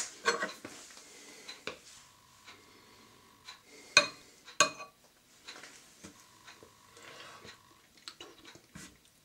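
Metal spoon clinking against a ceramic soup bowl as soup is scooped out for a taste: a few sharp, ringing clinks, the loudest two about four seconds in, half a second apart.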